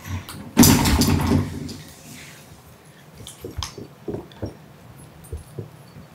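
Cats eating from ceramic food bowls: small wet chewing and licking clicks, with a louder noisy burst of food and bowl sounds about a second in.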